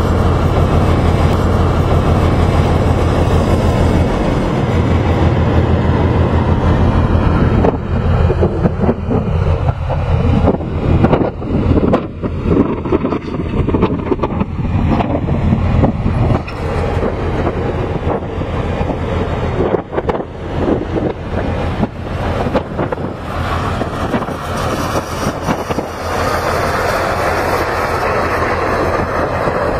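Container crane machinery running: a steady low hum at first, then a continuous rumble with many irregular clanks and rattles through the middle.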